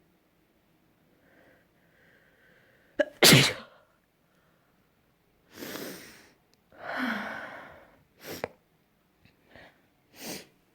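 A person's sneeze: faint breaths, then one loud, sharp sneeze about three seconds in, followed by several softer breathy bursts.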